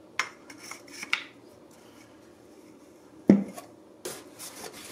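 Ab roller being put together by hand: a few light clicks of its plastic wheel and metal handle parts, then one sharp knock a little past three seconds in as the wheel and handle rod are fitted together. A rustle follows near the end.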